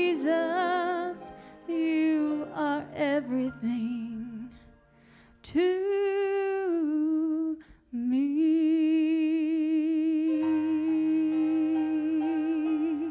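A woman singing solo into a microphone over quiet instrumental accompaniment: drawn-out phrases with vibrato, then one long held note from about eight seconds in.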